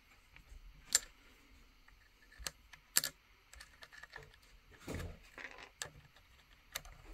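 Irregular clicks and light taps of small parts of a Lionel toy locomotive motor being handled and fitted back together after greasing. The sharpest clicks come about a second in and at three seconds, with a short rustle near five seconds.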